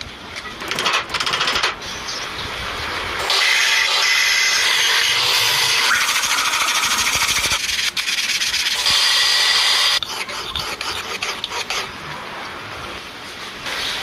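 Power tool grinding or sanding metal, with short bursts at first, then a long steady run of about seven seconds, then lighter on-and-off contact.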